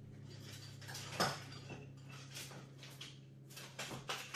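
Quiet off-camera kitchen clatter: a few short knocks and clinks of dishes or utensils, one about a second in and several near the end, over a steady low hum.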